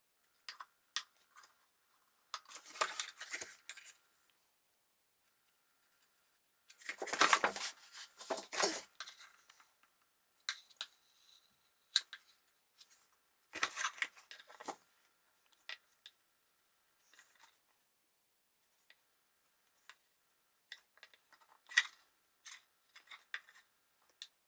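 Intermittent scraping and clicking of hand tools working a plastic car air filter housing, in short bursts with pauses between, over a faint steady high tone.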